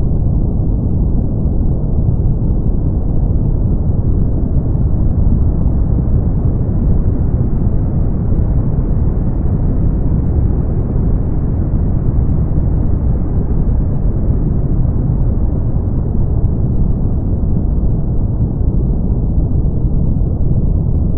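Steady brown noise: an even, deep rumbling hiss, heaviest in the low end and with little treble. Its top end brightens slightly toward the middle and dulls again.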